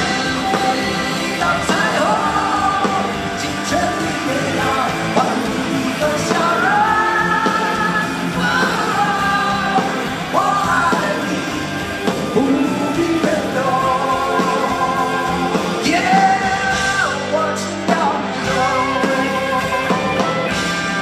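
Two male vocalists singing live with a rock band, held high sung lines over the band, with the reverberation of a large arena.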